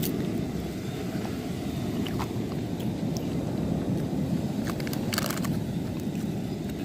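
Steady low rumble of beach ambience, with a few faint clicks.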